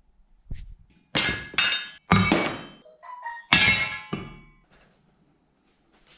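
Metal parts clanking and knocking: about six sharp hits, each with a metallic ring, the loudest a couple of seconds in, with a brief squeak between them.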